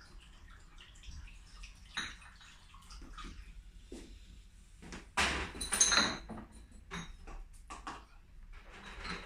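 Water sloshing and splashing, with scattered knocks and clinks, as glass beer bottles are washed and handled during cleaning for bottling. The loudest splash comes about five seconds in and lasts about a second.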